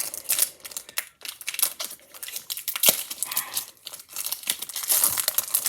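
Foil wrapper of a Pokémon trading card booster pack crinkling as it is worked open and the cards are pulled out, with irregular crackles throughout and one sharp crack about three seconds in.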